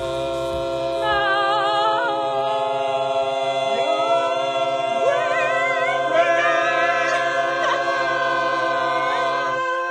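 A small group of people singing together, holding one long loud chord with vibrato, some voices sliding up to higher notes midway, all breaking off together near the end.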